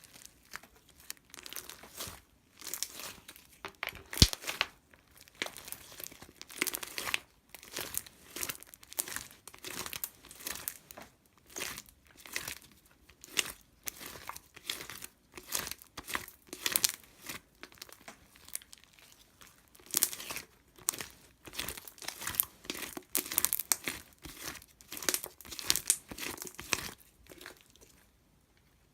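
Crinkling and crumpling in many short, irregular bursts, with one sharp click about four seconds in; it stops shortly before the end.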